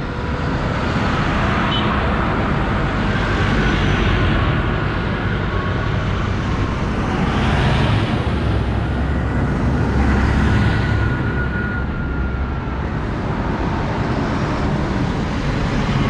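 Several large modern farm tractors driving past one after another on a country lane: diesel engines running under way with tyre noise on the road surface. The sound swells as each tractor passes, loudest about halfway through.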